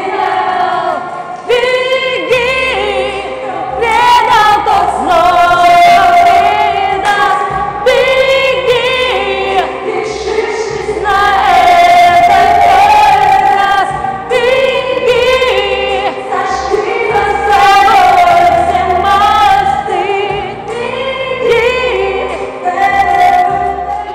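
A young woman sings a Russian song with vibrato into a handheld microphone, over a backing track with a steady bass line.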